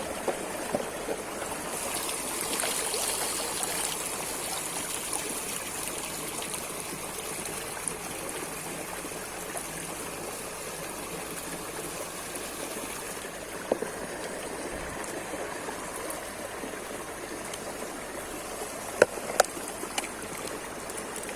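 River water running steadily, with a few sharp clicks or knocks, the loudest two close together near the end.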